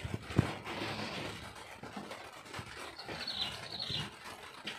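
Footsteps on wooden deck planks, with a sharp knock about half a second in. A bird chirps a short run of high notes near the end.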